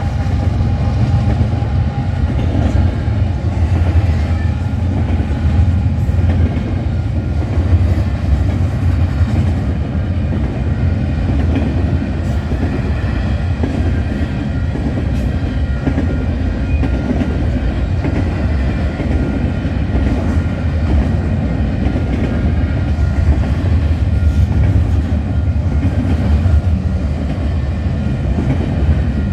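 Freight train rolling steadily past at close range: a continuous heavy low rumble of the cars, with the clickety-clack of wheels over rail joints.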